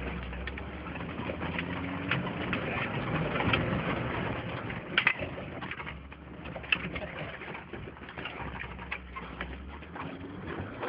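Engine of a Mercedes-Benz G-Class 'Wolf' off-road vehicle running with a steady low drone, heard from inside the cabin, with knocks and rattles from the body as it drives over rough ground.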